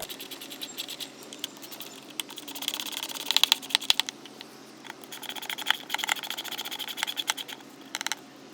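Ratchet of a screwdriver or driver handle with a T20 Torx bit clicking in quick runs as the rear light cluster screws are undone, loudest about three and a half seconds in.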